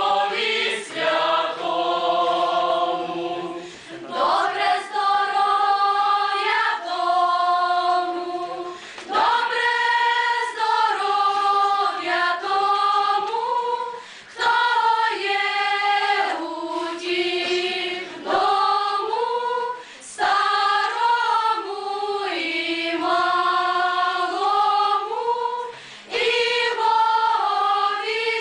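Mixed choir of young voices singing a Ukrainian folk wedding song unaccompanied, in slow phrases of long held notes with short breaks between phrases.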